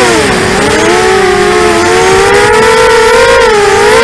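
ImmersionRC Vortex 250 Pro racing quadcopter's four brushless motors and propellers whining loudly in fast flight, heard from on board. The pitch drops sharply about half a second in, climbs slowly, dips again near the end and rises back as the throttle changes.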